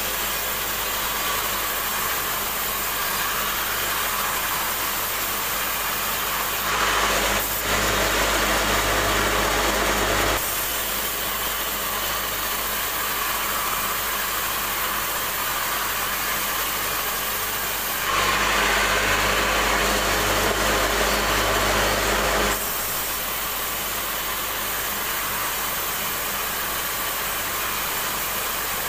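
Band sawmill running, its blade cutting lengthwise through a large timber: steady machine noise with a low hum, growing louder and harsher twice, about a quarter of the way in and again about two-thirds through.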